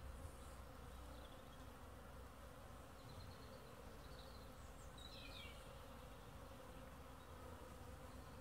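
Faint, steady buzzing of Buckfast honeybees flying around the hive entrance on a cleansing flight.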